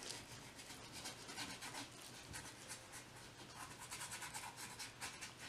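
Faint, quick scratching strokes of a small paintbrush's bristles working thick acrylic paint onto a dry, textured canvas board.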